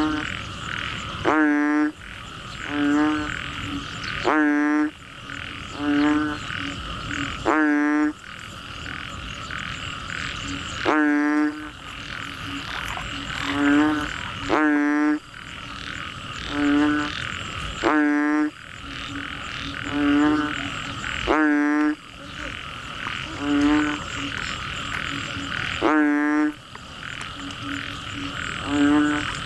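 Frogs calling loudly and repeatedly, about one call every one and a half seconds, each a rising croak followed by a short lower note, over a steady high trilling chorus.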